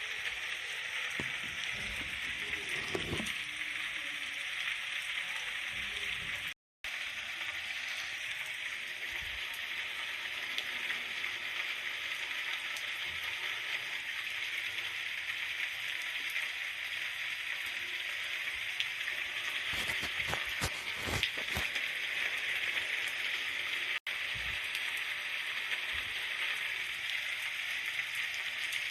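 Steady rain falling, a continuous even hiss with a few faint heavier patters; the sound cuts out completely for a moment about six and a half seconds in.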